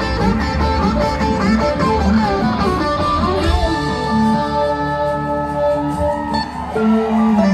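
Live rock band in a slow jam: electric guitars over bass and drums. About three and a half seconds in, the bass and drums drop out, leaving long held notes ringing.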